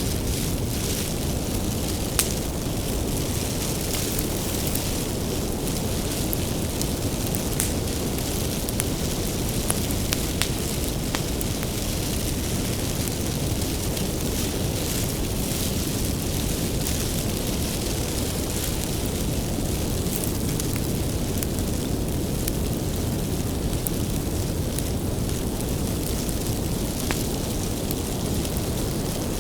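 Bonfire of firewood burning with a steady low rumble of flames and frequent sharp crackles and pops from the wood.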